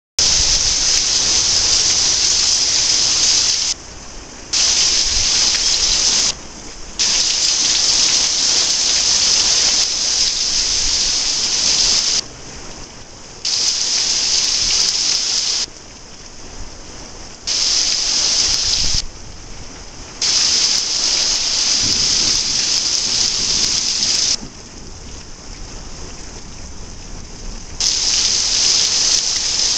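Heavy rain pouring down in a desert summer storm, a loud steady hiss that drops away abruptly several times and comes back a few seconds later.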